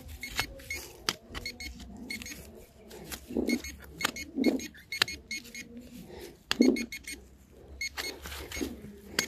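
Metal detector pinpointer beeping on and off, among repeated sharp clicks and knocks.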